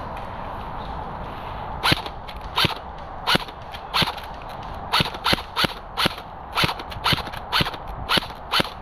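Airsoft gun firing about a dozen single shots, each a sharp snap, spaced unevenly at roughly two a second.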